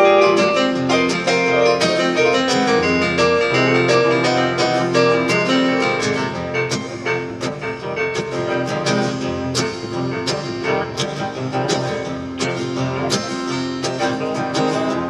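Live country band playing an instrumental break, with piano-voiced stage keyboard and acoustic guitar and no singing.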